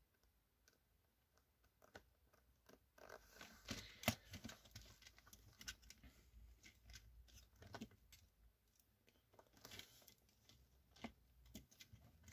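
Faint, scattered clicks and light knocks of plastic LEGO pieces as a built Legends of Chima fire-lion vehicle is handled and turned, over near silence. The loudest click comes about four seconds in.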